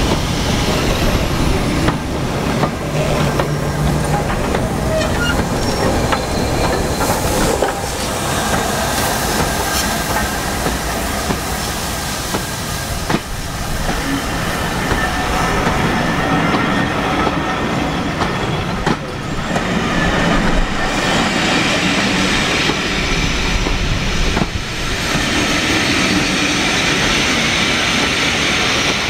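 LMS Black Five 4-6-0 steam locomotive and its train of passenger coaches passing close by: a steady loud rolling of steel wheels on the rails, with occasional sharp knocks and thin high squeals from the wheels.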